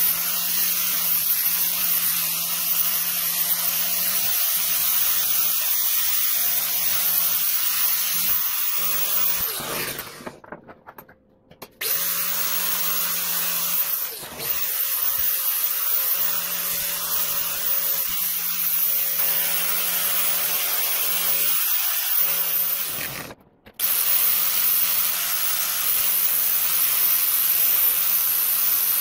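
Angle grinder with a sanding disc grinding the steel head of a ball peen hammer: a steady high hiss over the motor's hum. It drops out briefly twice, about a third of the way in and again past three-quarters.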